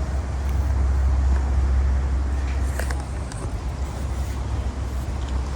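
A steady low rumble, easing slightly about three seconds in, with a few faint clicks.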